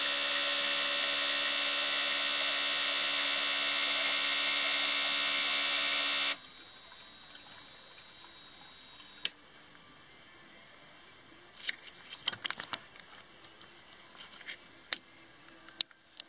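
Four fuel injectors on a test bench pulsing rapidly while spraying into measuring cylinders, a loud steady buzz with a spray hiss that cuts off suddenly about six seconds in. A few faint clicks and taps follow.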